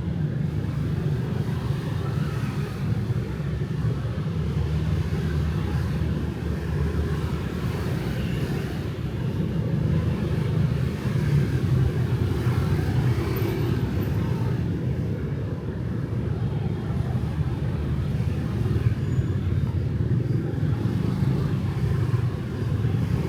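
Steady night street traffic: motorbikes and cars running past in a continuous low rumble, swelling slightly now and then, with no single event standing out.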